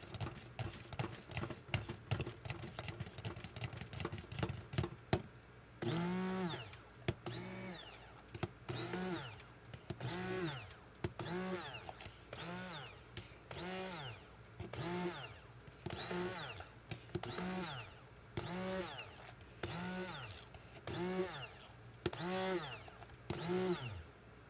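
Immersion stick blender run in short pulses in thick hot-process soap batter: a motor whine that rises and falls with each pulse, a little under one pulse a second. The pulses start about six seconds in, after a stretch of rapid clicking.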